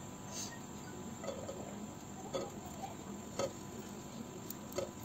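Stuffed green chillies being set down one at a time in an oiled nonstick frying pan: a few soft taps about a second apart over a low steady background.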